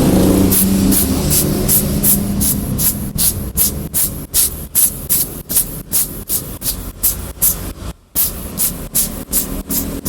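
Quick, evenly repeated short hissing strokes, about two or three a second, with a brief pause about eight seconds in. They come from laptop parts being cleaned.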